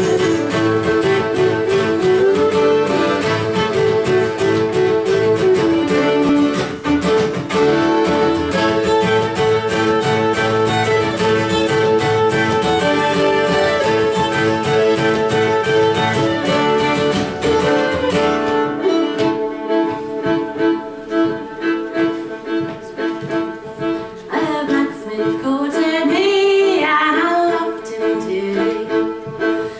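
Folk tune on fiddle over fast-strummed acoustic guitar. About 18 seconds in, the strumming stops, leaving the fiddle playing the melody mostly on its own, with a few slides.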